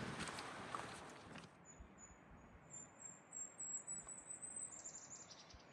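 A songbird singing a thin, very high-pitched song of rapid short notes that climbs slightly and ends in a quick tumbling flourish. Before it, about the first second and a half, there are footsteps and rustling on a trail.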